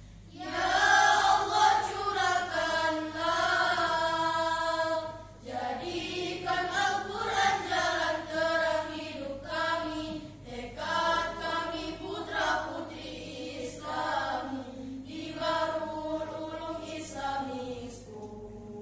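Girls' choir singing a school hymn in Indonesian, the voices entering just after the start and breaking off briefly about five seconds in before carrying on.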